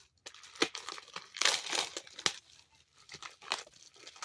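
Packaging being handled and unwrapped: crinkling and rustling, with a few sharp snaps.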